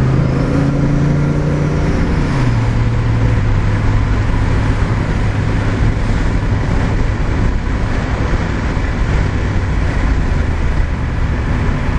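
Turbocharged 5.3-litre V8 heard from inside the cabin while driving. The engine note holds for about two seconds, then drops to a lower, steady note, with constant road and wind noise.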